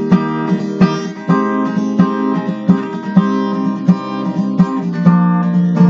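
Acoustic guitar strummed in a steady rhythm, about two strokes a second, with no singing.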